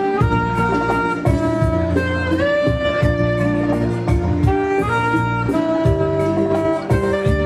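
Instrumental music with no singing: a lead melody of held notes that slide from one pitch to the next, over a band backing with bass and a steady beat.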